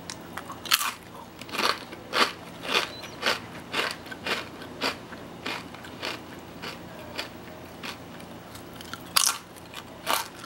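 Kettle-cooked lattice-cut potato chips being bitten and chewed: sharp crunches about two a second, growing softer and sparser in the middle, then a loud fresh crunch near the end followed by more chewing.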